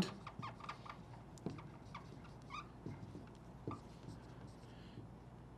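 Dry-erase marker squeaking and scratching on a whiteboard in a run of short, faint strokes as words are written.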